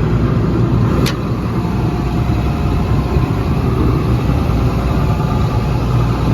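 Cummins diesel engine of an XCMG XE360U hydraulic excavator idling steadily, with a low, even hum. A single brief sharp click comes about a second in.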